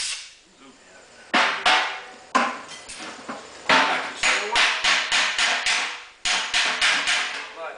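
Body hammer striking a freshly welded sheet-metal seam on a fender patch panel against a dolly, hammer welding the joint: sharp ringing metal blows, a few spaced strikes, then a steady run of about three a second that speeds up near the end.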